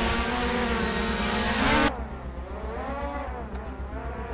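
DJI Mavic Air 2 drone's motors and propellers whining as it lifts off and hovers, a stack of tones wavering in pitch. About two seconds in the sound changes abruptly to a softer hum as the drone flies overhead, its pitch swinging up and down.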